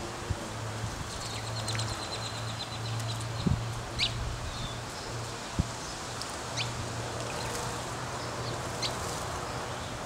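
House sparrows chirping: a quick run of short high notes about a second in, then single chirps spaced a few seconds apart, over a steady low hum.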